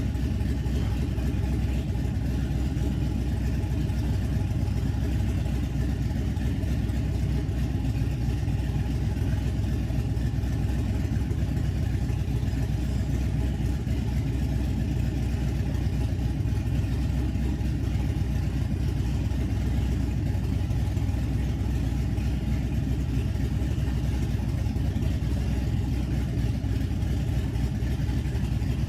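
A motor vehicle running steadily at an even pace, a constant low drone of engine and road noise with no revving or changes.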